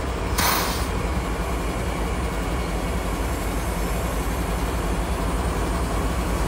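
Diesel locomotive engines running steadily with a low rumble, and a short hiss of air about half a second in.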